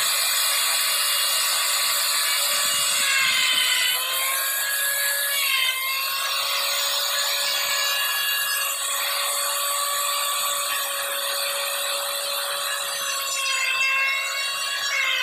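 Handheld electric wood router running at speed and cutting a circular speaker hole in a wooden board: a steady high whine over the rasp of the bit in the wood. The whine dips in pitch briefly about four and six seconds in.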